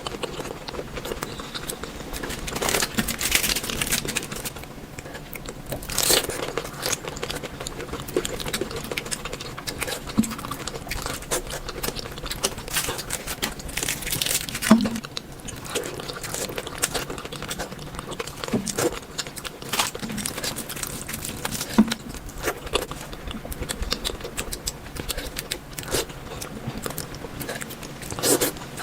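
Close-miked ASMR eating: irregular bites, crunching and chewing, with some crinkling and tearing sounds.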